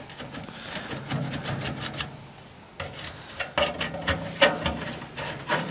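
Handling noise: irregular light clicks and knocks with some rubbing, quieter for a moment partway through.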